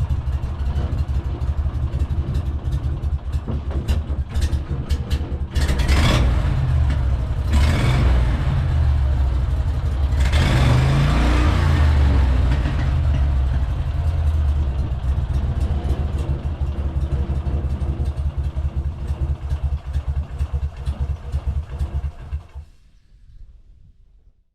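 Motor vehicle engine running steadily, louder from about six seconds in, then fading out shortly before the end.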